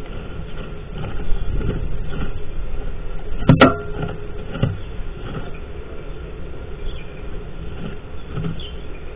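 Sound picked up inside a tree sparrow nest box: a low steady rumble with faint scratchy noises, a sharp knock about three and a half seconds in and a softer one a second later.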